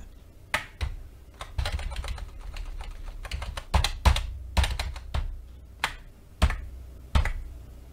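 Typing on a computer keyboard: irregular key clicks in uneven runs, with a few harder strokes.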